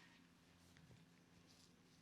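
Near silence: a low steady hum with a few faint, soft rustles, the clearest about a second and a half in.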